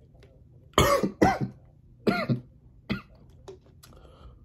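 A man coughing about four times in a row, the first two coughs the loudest and the last one short.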